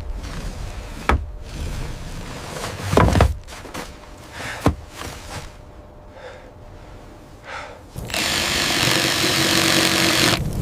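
A few wooden knocks and thuds, then a power tool runs steadily for about two and a half seconds and stops just before the end.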